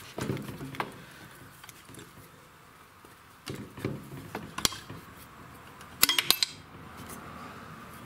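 Metal clinks and rattles of the camshaft and its gear being worked loose and pulled out of an opened Briggs & Stratton single-cylinder engine crankcase, in several short groups, with the loudest cluster of clinks about six seconds in.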